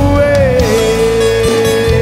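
Live worship band music with guitar: one long held note that slides down a little about half a second in, then holds steady and starts to waver near the end.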